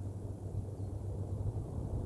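Steady low rumble with a faint hum, the outdoor background noise picked up by a nest-cam microphone.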